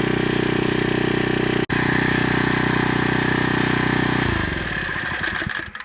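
A small engine runs loudly and steadily, then is switched off about four seconds in and winds down to a stop.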